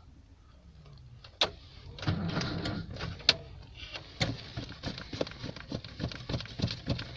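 Lada Zhiguli starter motor cranking the engine in a run of uneven strokes without it catching, the battery nearly flat.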